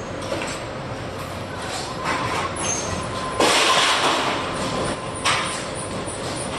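Factory machinery running, including an automatic paper-tube strapping machine for PE strap: a steady mechanical hum with faint whining tones. A little past halfway a loud rushing hiss lasts about two seconds.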